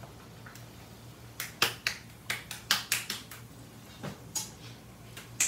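A run of sharp, irregular clicks and taps, about a dozen, starting about a second and a half in, over a low steady hum.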